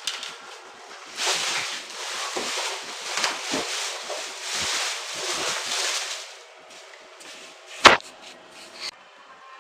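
Rustling and scraping of packaging being handled, uneven and rough, dying down about six seconds in; then a single sharp knock, the loudest sound, about eight seconds in, with a smaller click a second later.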